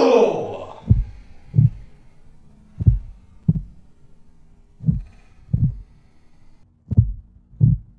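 Heartbeat sound effect: four slow double thumps, lub-dub, about two seconds apart. It stands for the overdose victim's slowing heart.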